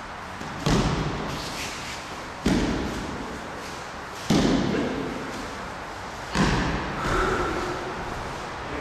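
Bodies hitting tatami mats in breakfalls from throws: four heavy thuds about two seconds apart, each echoing in the large hall.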